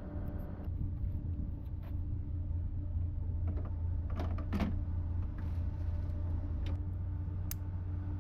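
A steady low mechanical hum, like an idling engine or running machine, with scattered knocks, clicks and creaks over it, the loudest cluster about four to five seconds in.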